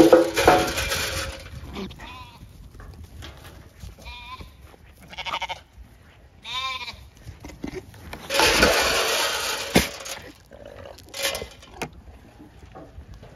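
Weaned Zwartbles lambs bleating: a few short, wavering calls in the middle. Two loud stretches of rustling noise, at the start and about eight seconds in.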